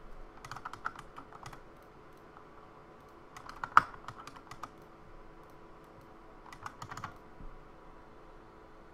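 Computer keyboard keys clicking in three short bursts of typing, the loudest keystroke in the middle burst, as figures are keyed into a trading order ticket.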